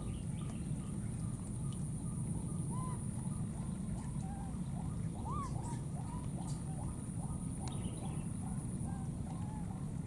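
Animal calls: a steady run of short calls, about three a second, with a few longer rising-and-falling calls in between.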